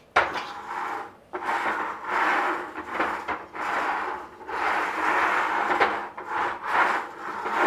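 A wooden board set down with a knock on a roller top of steel ball transfer bearings, then pushed back and forth over them about six times, each pass a rolling, rattling rush as the balls turn under the wood.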